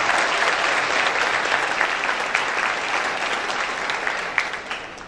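Large audience applauding, fading away near the end.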